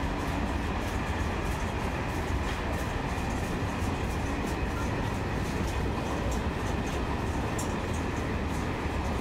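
Freight hopper wagons of a works train rolling past at close range: a steady rumble of steel wheels on the rails, with frequent sharp high clicks.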